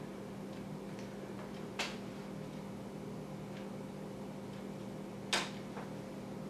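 Quiet room tone with a steady low electrical hum, broken by two sharp clicks about three and a half seconds apart, the second one louder.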